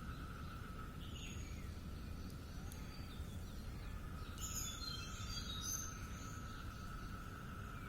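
Outdoor ambience: a steady insect drone at one pitch over a low rumble, with a quick cluster of bird chirps about halfway through.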